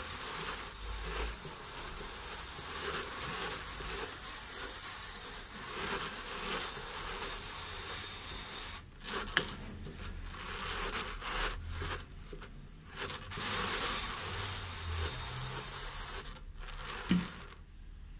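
Hand-cranked drum carder turning, its toothed carding cloth brushing fibre with a steady hiss. After about nine seconds the cranking goes in short stops and starts, then stops a couple of seconds before the end, followed by a small click.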